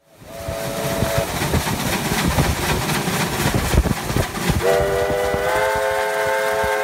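A steam locomotive running past with its engine and wheels rumbling and knocking, while its whistle gives a short two-note blast just after the start. About two-thirds of the way in it begins a long whistle of several notes sounded together, which steps up slightly in pitch and holds to the end.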